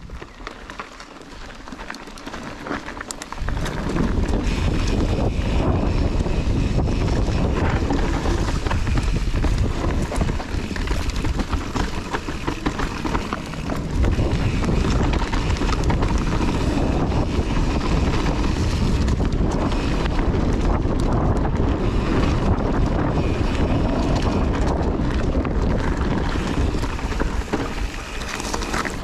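Wind buffeting a body-mounted action camera's microphone and tyres rumbling over a dirt trail as a Kona Process 153 mountain bike rides downhill at speed, with many small knocks and rattles from the bike over bumps. The noise builds sharply about three and a half seconds in as the bike picks up speed.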